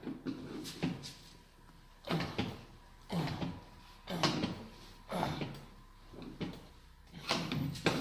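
Rear hatch of a Datsun 240Z being handled and closed: a series of short creaks and knocks, roughly one a second.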